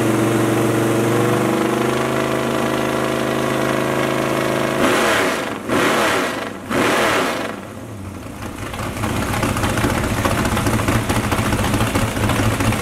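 V8 engine on a demo run stand idling, then revved three times in quick succession about five seconds in, before dropping back to a steady idle.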